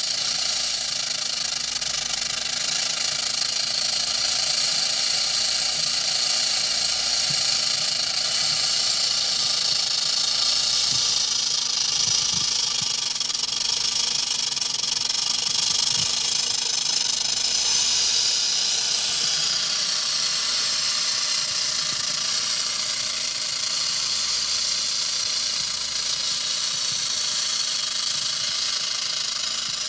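Rattlesnake's tail rattle buzzing continuously, a dense, high, hissing whir that holds steady without a break.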